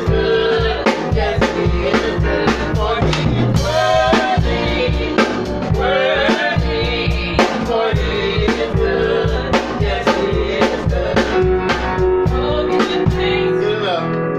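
A live band playing a song, a small drum kit keeping a steady beat over bass notes and a melody line that bends in pitch.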